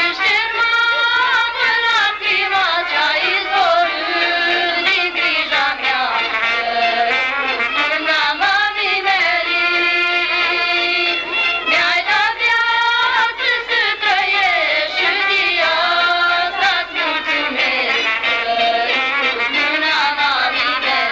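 Folk ensemble performing live: a wavering melody that rises and falls over its accompaniment, with little bass.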